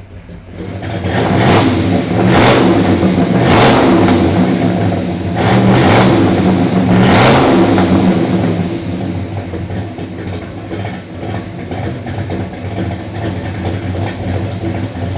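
1970 Chevelle SS454's LS6 454 big-block V8 running through its dual exhaust, blipped up in several quick revs over the first eight seconds or so, then settling to a steady idle.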